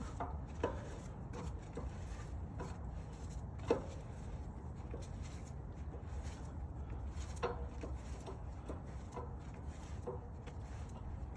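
Scattered light clicks and knocks of a hand wrench and socket working a boat trailer wheel's lug nuts, over a low steady hum.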